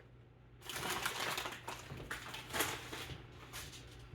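Rustling and scraping handling noise with many small clicks, starting about half a second in and fading out around three seconds, over a steady low hum.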